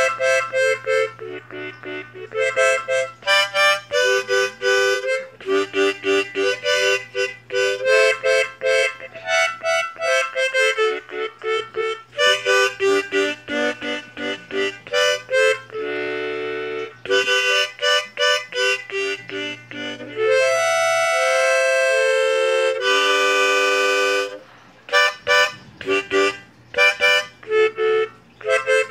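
Harmonica played: quick runs of short notes and chords, with longer held chords and a note bent up and down about two-thirds of the way through.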